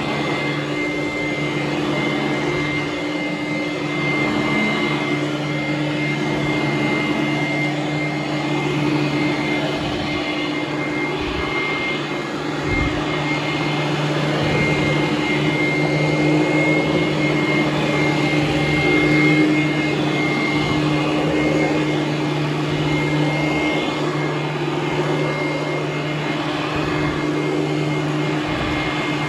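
Hoover Conquest upright vacuum cleaner running steadily while pushed over carpet: a constant motor hum with a high whine over it.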